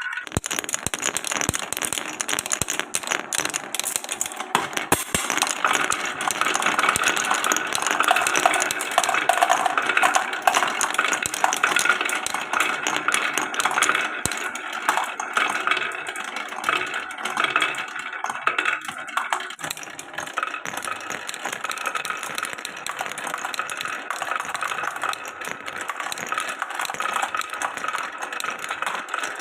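Glass marbles rolling and clattering down a wooden marble run: a continuous rattle dotted with many sharp clicks as they knock along the tracks. It is busiest in the first half and eases a little later on.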